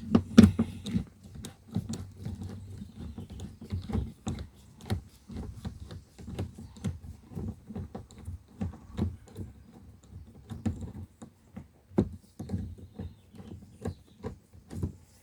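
Screwdriver working the Torx screws out of a car's interior door handle: irregular light clicks and small knocks, several a second, with a louder knock about twelve seconds in.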